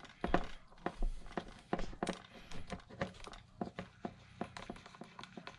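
Star drag of an Abu Garcia 6500 C3 baitcasting reel being unscrewed by hand: a run of sharp, irregular clicks and ticks, about three or four a second, from the small metal parts of the reel.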